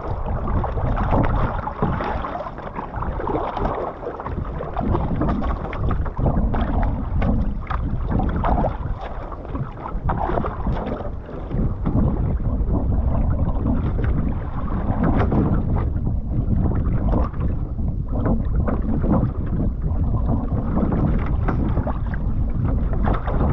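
Wind buffeting the microphone over sea water lapping and splashing against the hull of a one-person outrigger canoe, a steady rumbling rush that rises and falls with the gusts.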